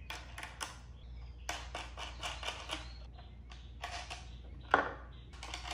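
Irregular clicks and light knocks of plastic and metal parts being handled as a quadcopter is fitted onto a 3D-printed test jig, with a quick run of clicks near the middle and one sharper knock near the end, over a low steady hum.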